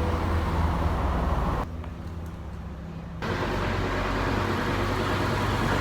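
Steady low rumble and hiss of a moving road vehicle. It drops to a quieter stretch for about a second and a half, starting a little under two seconds in, then comes back.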